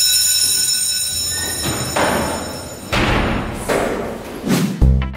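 A steady electronic alarm-type ringing fades out over the first second and a half. About four noisy whooshing swells with thuds follow, one after another. Music with a heavy low beat starts near the end.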